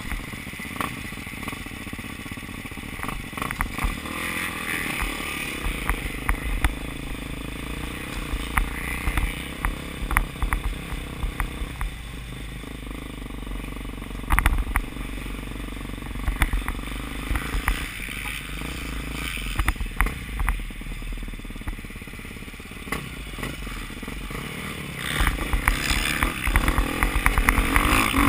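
Motocross bike engine running at low speed, with frequent sharp clicks and rattles. About three seconds before the end it is opened up and gets clearly louder.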